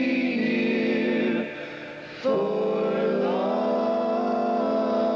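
A male and female vocal group singing close harmony in long held chords. The first chord breaks off about a second and a half in, and after a brief dip a new chord starts just past two seconds and is held steady.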